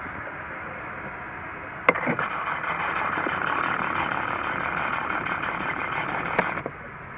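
Steady hiss of an Airbus A321neo's CFM LEAP-1A jet engines at taxi power. About two seconds in, a click opens a louder burst of hiss, which cuts off suddenly with another click some four and a half seconds later.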